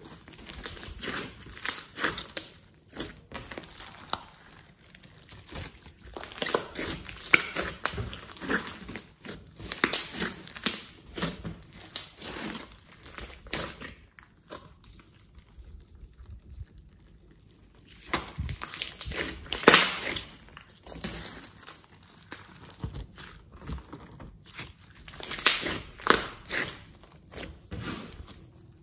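Hands squeezing, pinching and pressing a large lump of glossy slime mixed with clay and glitter, giving bursts of small crackling clicks. The bursts come in clusters, with a pause of about four seconds just past the middle.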